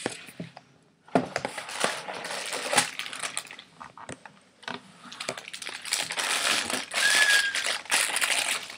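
A clear plastic bag crinkling and crackling as it is handled and squeezed. It starts about a second in and runs in two long stretches, with a brief break about four seconds in.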